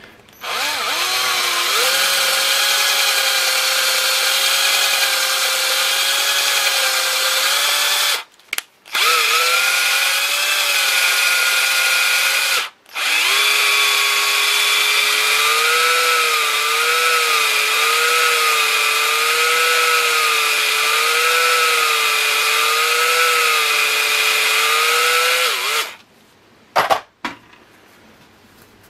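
Small cordless rotary tool running at high speed, grinding the bore of a 2.5 cc model diesel engine's cylinder; its whine wavers in pitch as the load changes. It runs in three stretches, stopping briefly about eight and thirteen seconds in, and stops a few seconds before the end.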